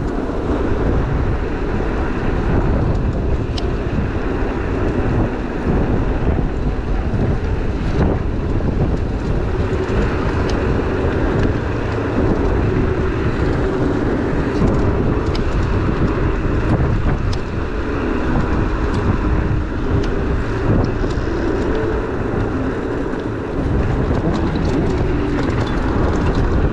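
Steady wind rush on a body-worn action camera's microphone and road noise while riding an ONYX RCR electric moped along a paved path, with a few light ticks.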